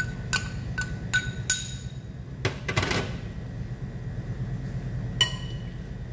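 A metal spoon taps the rim of a ceramic bowl five times in quick succession, each tap with a short ring, knocking chopped onion out into a glass mixing bowl. Then come a few scraping clicks of serving utensils, and near the end a single ringing clink against the glass bowl as the salad is mixed, all over a steady low hum.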